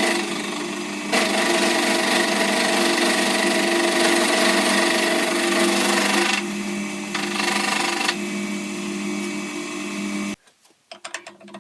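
Small milling machine running and cutting metal: a steady motor hum with cutting noise that varies in strength, stopping abruptly about ten seconds in, followed by a few light clicks.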